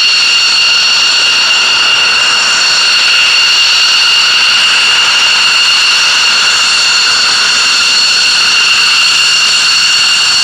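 McDonnell Douglas F-15C Eagle's twin Pratt & Whitney F100 turbofan engines running at taxi power as the jet rolls past: a loud, steady, high-pitched whine over a rushing hiss.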